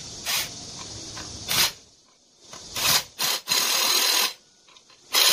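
Cordless drill-driver whirring in a series of short bursts and then two longer runs of under a second each, driving screws into a small four-stroke engine's crankcase.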